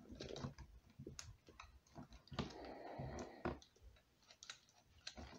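Faint scattered plastic clicks from a Siamosaurus action figure's tail-linked neck mechanism as the head is swung around. There is a short scraping rustle about two and a half seconds in.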